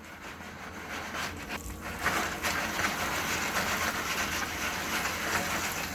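Stovetop foil popcorn pan sizzling as its oil and kernels heat, while it is shaken in circles over the electric burner and scrapes on it. The sizzle grows louder about two seconds in.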